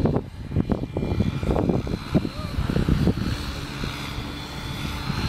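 Electric RC helicopter with an Align 700MX motor in flight: a steady rotor drone and a thin high motor whine. For the first three seconds it is buried under heavy wind buffeting on the microphone.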